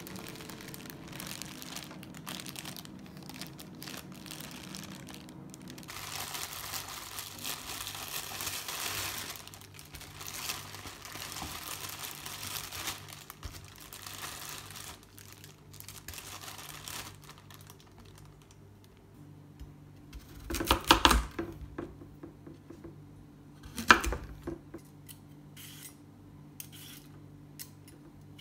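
Thin plastic food bags crinkling and rustling as they are handled and opened. Two loud sharp knocks come about three seconds apart past the middle, over a faint low steady hum.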